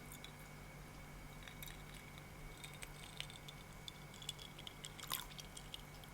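Hamburger-shaped coaster set being handled: faint, scattered small clicks and taps, with one sharper click about five seconds in, over a steady faint hum.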